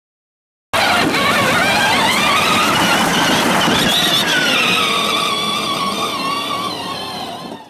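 A car engine revving sound: it starts abruptly about a second in, climbs in pitch, then eases back and fades near the end.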